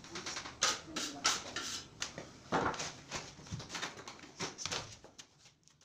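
Irregular knocks and scuffs of a person shifting their weight and moving on a wooden ladder, the loudest about two and a half seconds in, dying away near the end.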